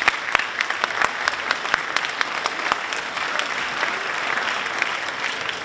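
Audience in a school hall applauding, many hands clapping in a steady dense patter that begins suddenly just before and holds through.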